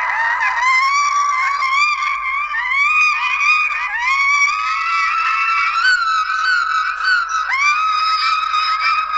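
A sneeze sound digitally copied and stacked many times over, pitched up into a continuous high chorus of overlapping voice-like cries, each rising in a curve and then holding, with new ones coming in every half second or so.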